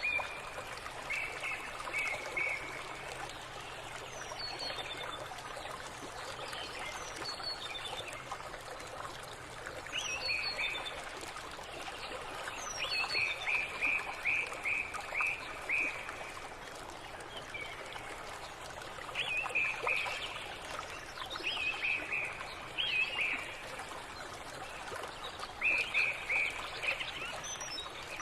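Birds chirping in short runs of quick, high notes that come every few seconds, over a steady hiss.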